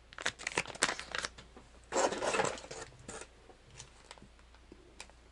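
Plastic bait packaging being handled: quick crinkling crackles and clicks for the first second or so, a longer rustle about two seconds in, then a few light clicks.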